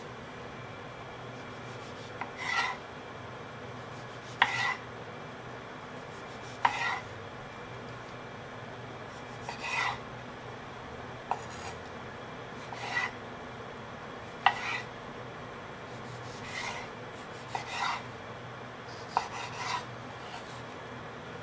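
Kitchen knife slicing a tomato on a wooden cutting board: about a dozen separate cuts one to two seconds apart, each a short rasp through the tomato, some with a sharp knock of the blade on the board.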